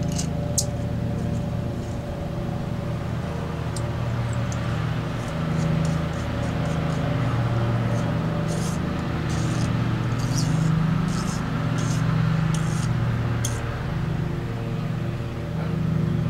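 Light metallic clicks and scrapes as a small tool works against the coiled metal cooling tube from an outboard's vapor separator tank, with the clicks bunched in the middle. A steady low mechanical hum runs underneath and is the loudest sound.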